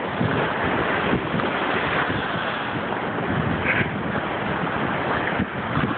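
Rough lake surf washing and breaking against a rocky shoreline, mixed with wind buffeting the microphone.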